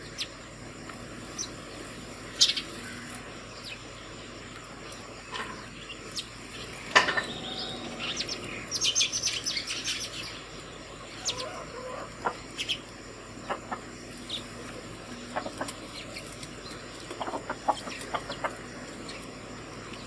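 A small flock of house sparrows chirping: scattered short chirps, with a busier run of calls about eight to ten seconds in and another quick series near the end.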